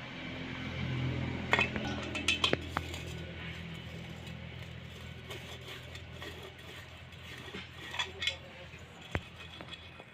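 Steel gearbox parts and tools clinking and knocking against each other as the gearbox is assembled by hand. A cluster of sharp clinks comes about two seconds in and a few more near the end, over a low hum that fades after the first few seconds.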